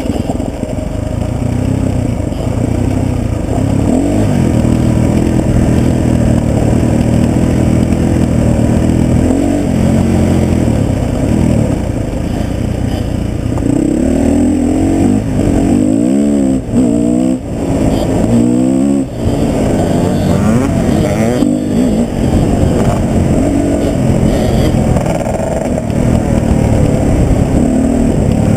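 Husqvarna TE 250 enduro motorcycle's single-cylinder engine running under load on a rough trail, its pitch rising and falling with the throttle. About halfway through it revs up and drops several times in quick succession.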